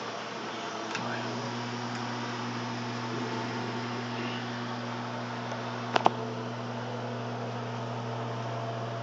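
LG microwave oven running: a steady fan whir with a low hum that comes in about a second in and holds. Two sharp clicks about six seconds in.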